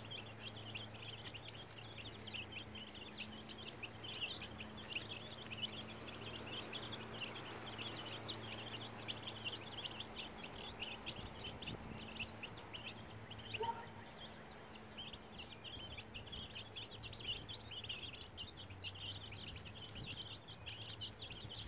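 A flock of baby chicks peeping continuously, many short high peeps overlapping, over a faint steady low hum.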